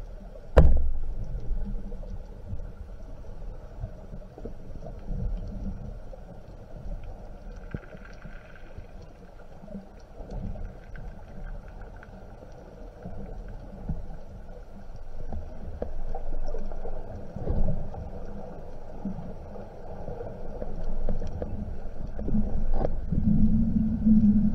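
Underwater ambience heard through a camera mounted on a speargun: a low, muffled rumble of moving water with scattered small knocks. There is a sharp knock about half a second in and a short low hum near the end.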